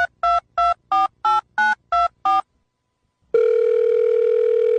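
Telephone keypad dialing tones: a quick run of about eight short two-note beeps, about three a second, then a pause and one long steady tone from about three seconds in.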